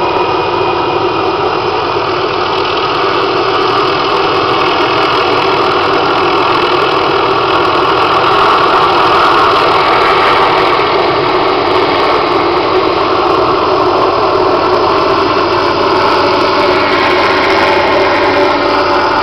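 Helicopter running close by: a loud, steady engine and rotor noise that grows a little louder about seven seconds in.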